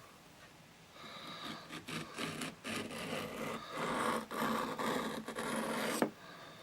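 Small penknife blade stroked repeatedly along a small water-wetted whetstone: a run of scraping strokes starting about a second in and stopping abruptly near the end.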